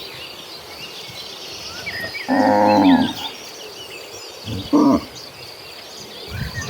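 Cattle mooing: one loud moo about two and a half seconds in, then a shorter, clipped moo near five seconds.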